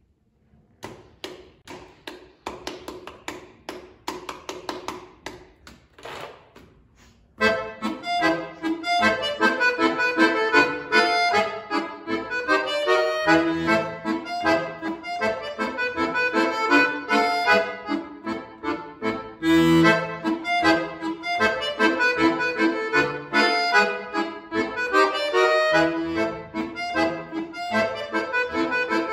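Solo chromatic button accordion playing. It opens quietly with short, detached notes, then about seven seconds in turns suddenly loud with full, sustained chords and melody.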